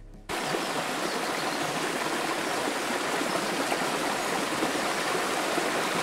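Steady rush of a small waterfall spilling into a stream, starting suddenly about a third of a second in.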